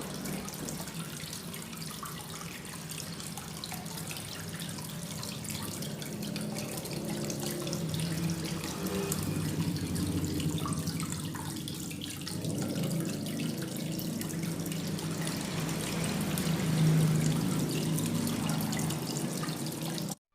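Water running and splashing steadily over a small homemade cement waterfall, cutting off suddenly at the end.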